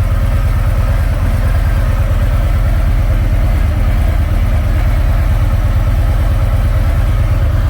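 Harley-Davidson V-twin engine of a Freewheeler trike idling steadily, freshly filled with oil.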